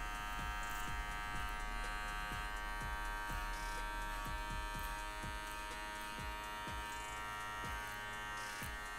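Electric T-blade hair trimmer buzzing steadily as its blade traces a line into short hair, sketching the outline of a freestyle design.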